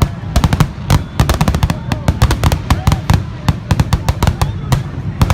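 Aerial fireworks going off in a rapid barrage, many sharp bangs and cracks a second over a deep rumble.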